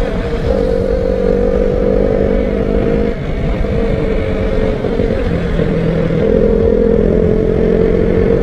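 Vehicle engine running steadily at an even speed while driving on the road, over a low rumble of road and wind noise.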